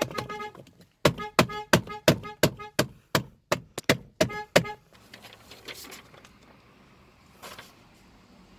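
Car horn honked in rapid short beeps, about four a second, with a brief break just before one second in. The honking stops about five seconds in, leaving only faint background noise.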